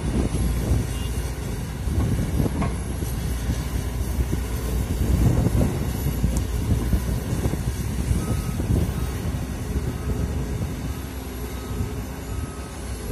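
Komatsu PC200 hydraulic excavator working, its diesel engine running steadily under load as it digs and lifts earth. Faint short beeps repeat in the second half.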